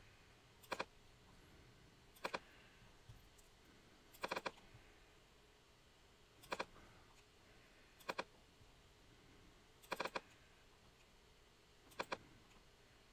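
Computer mouse clicks in quick pairs or triples, about every two seconds, over faint room tone.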